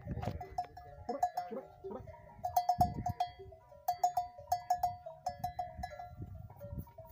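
Metal bells on camels' neck collars clanking at an uneven pace as the animals move, each stroke ringing briefly, over a low rumbling underneath.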